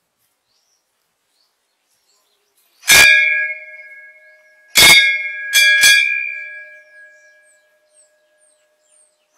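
Temple bell struck three times, the last two strikes about a second apart, each leaving a ringing tone that slowly fades.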